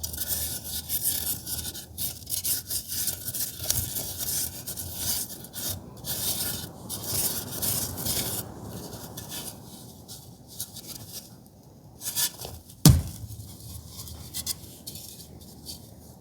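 Soft blue reformed gym chalk being crushed and rubbed by hand: a dense, gritty crunching and crumbling that thins out after about nine seconds. A single sharp thump comes about thirteen seconds in.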